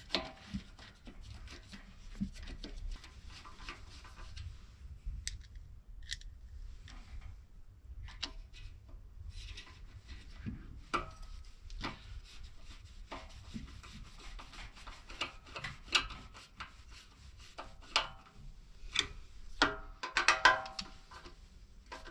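Scattered small clicks, taps and scraping from hands and a screwdriver working on a generator's alternator end, as wires are fed into place and the brush holder is fitted. The clicks are irregular and close together throughout.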